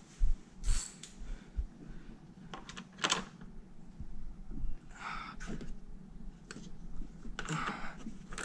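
Hand tools and engine parts being handled in a car's engine bay: scattered light clicks and knocks at irregular intervals, with brief rustles about five and seven and a half seconds in.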